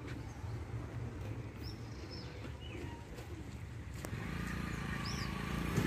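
A few short bird chirps over a steady low rumble, with a low humming drone coming up about four seconds in.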